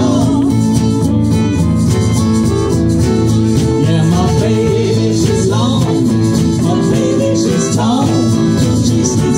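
Live band playing through a PA: upright bass, guitars and drums in a steady groove, with a voice singing at times.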